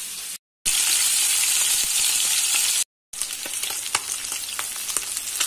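Small horse mackerel coated in corn flour frying in hot oil in a pan: a steady sizzling hiss with scattered crackles and pops. The hiss is louder for about two seconds in the middle and is broken twice by brief dropouts.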